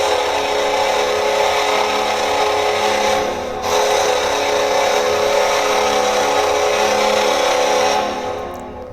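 Buffalo Sabres arena goal horn, a chord of several notes sounding together in a long blast. It breaks off briefly about three seconds in, sounds again, and dies away near the end.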